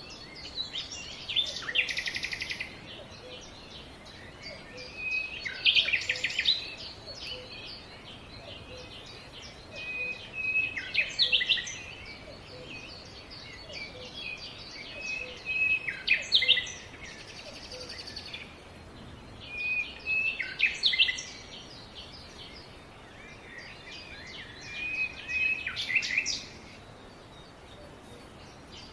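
Birds singing: a louder song phrase comes back about every five seconds, six times in all, over a steady background of short, high chirps from other birds.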